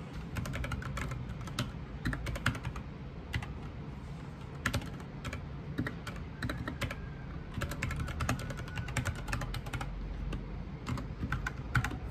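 Typing on a compact white backlit mechanical keyboard: quick runs of key clicks broken by short pauses, over a faint low background hum.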